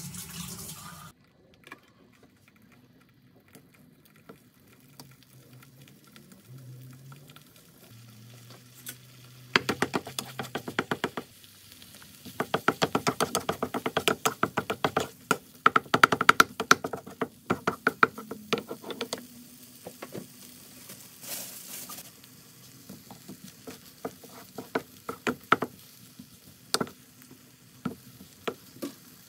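Eggs frying in a pan while a wooden spatula stirs and scrapes them: a faint sizzle, with a fast run of clicking taps and scrapes from about ten seconds in to about nineteen, then only occasional taps.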